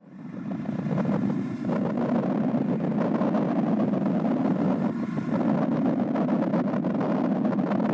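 Steady low rumble of strong, gusty wind on the microphone, with brief buffeting thumps.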